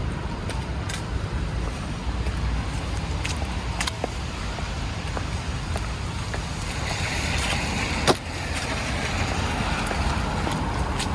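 City street traffic: a steady low rumble of car engines and tyre noise, with a passing car's noise swelling in the second half. A few sharp clicks, the loudest about eight seconds in.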